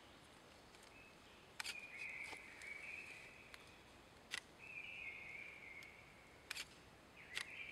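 Faint songbird song in the forest: a short trilled phrase, dropping slightly in pitch, repeated three times about every three seconds. A few sharp clicks fall between the phrases.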